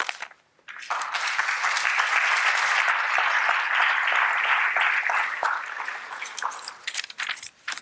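Audience applauding in an auditorium. The clapping starts about a second in, holds steady, and dies away near the end.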